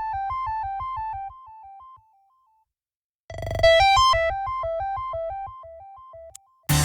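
Android 4.0 Ice Cream Sandwich stock ringtone: a short synthesized keyboard phrase of rippling, stepping notes over a pulsing bass. It fades out, then plays again after about a second of silence. A louder, different ringtone cuts in right at the end.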